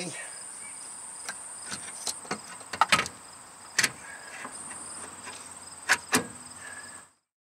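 Scattered clicks and knocks of a new power steering rack being shifted into position against the car's underbody and mounts, a few light strokes a second or so apart. The sound cuts off suddenly shortly before the end.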